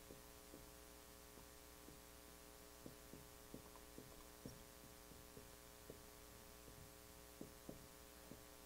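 Near silence: a steady electrical hum, with faint irregular taps of a marker writing on a whiteboard.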